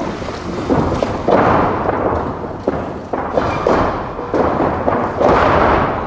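Pro-wrestling ring canvas and boards rumbling and thudding under two grappling wrestlers, with several sharp impacts as one is taken down to the mat.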